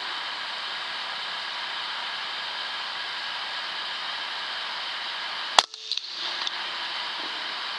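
A single air rifle shot, one sharp crack about five and a half seconds in, heard through a digital night-vision scope's built-in microphone over its steady electronic hiss, followed by a few faint ticks.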